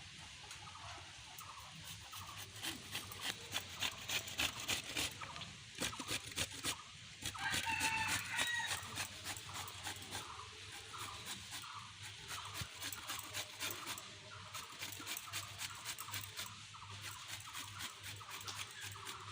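Carrots being grated by hand on a metal grater: quick, rhythmic scraping strokes. A hen clucks briefly about eight seconds in, the loudest moment.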